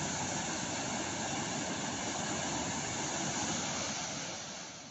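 Fast-flowing floodwater rushing past in a steady, dense noise, fading out near the end.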